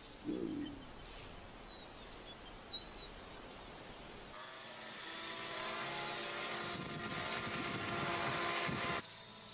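A small radio-controlled camera helicopter's motor and rotor make a steady buzzing whine that starts about halfway through, grows a little louder, and stops shortly before the end. Before it, only a faint outdoor background with a few thin bird chirps.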